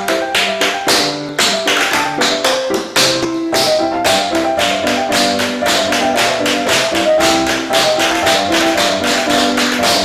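Tap shoes' metal taps striking a wooden floor in a fast, dense rhythm of sharp clicks, over background music.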